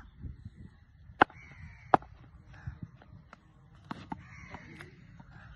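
Crows cawing in short, harsh calls, with two sharp knocks about one and two seconds in and two lighter ones near four seconds: a cricket bat tapped on the concrete pitch.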